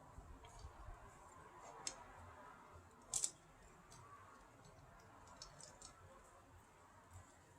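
Scattered light clicks and taps of small hard objects being handled, with a louder double click about three seconds in, over faint room tone.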